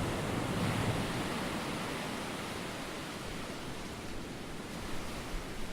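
Steady rushing noise of sea and wind, with a low rumble at the start that dies away within about a second.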